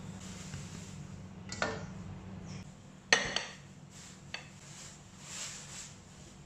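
Ceramic rice bowl knocking against a china plate as it is turned upside down onto it: a sharp clink about three seconds in, the loudest sound, with lighter knocks about a second before and after. A steady low hum runs underneath.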